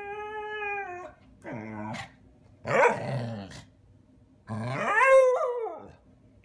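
A pit bull-type dog howling and grumbling in a string of drawn-out calls. A long, steady howl ends about a second in, then comes a short low call, a louder rough growl-howl near the middle, and a call that rises and falls in pitch near the end.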